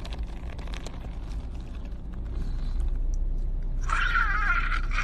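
A steady low rumble close to the microphone, then about four seconds in a man lets out a loud, high-pitched, wavering excited shriek lasting over a second.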